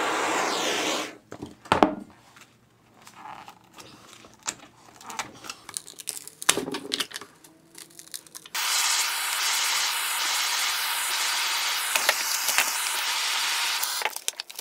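A heat gun blowing steadily, cutting off about a second in. Then crackling, tearing and a few sharp snaps as the plastic back sheet of a flexible solar panel is pulled off with pliers. The heat gun starts again about two-thirds of the way through.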